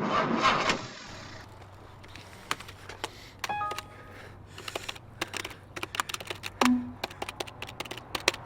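Computer keyboard keys clicking in irregular runs of keystrokes over a low steady hum.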